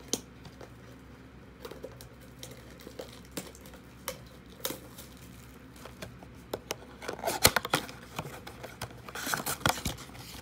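Plastic wrapping being torn and crinkled off a cardboard blaster box of trading cards, and the box being opened, with scattered rustles and clicks that grow busier in the last few seconds.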